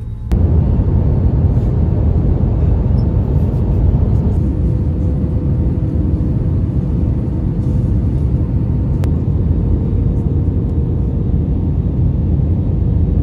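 Airbus A321neo cabin noise in flight: a loud, steady low rumble of engines and airflow with a faint steady hum, heard from inside the cabin. It starts abruptly just after the start.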